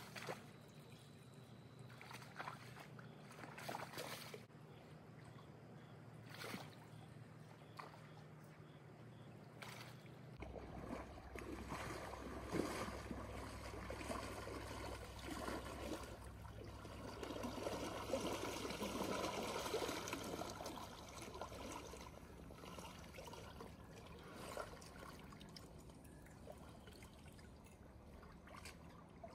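Shallow river water trickling and lapping close by. A low rumble sets in about a third of the way through. The water grows louder through the middle stretch, then eases off.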